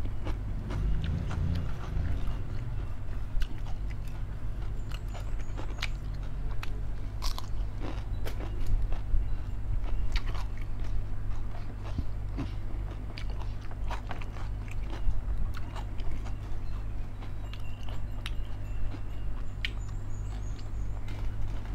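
A person chewing and biting food close to the microphone, with many sharp, crunchy clicks scattered throughout, over a steady low hum.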